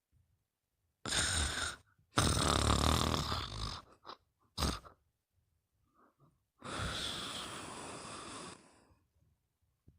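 Snoring in sleep: a short breath about a second in, then a long rattling snore from about two to four seconds, a brief snort near five seconds, and a long breathy exhale from about seven to nine seconds, with silent pauses between.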